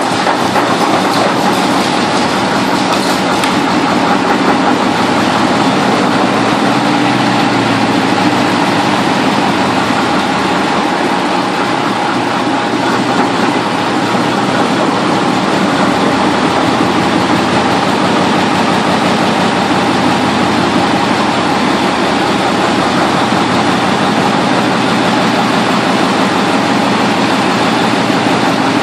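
Gardner 8L3 eight-cylinder diesel engine running steadily, a dense, even clatter of rapid firing pulses.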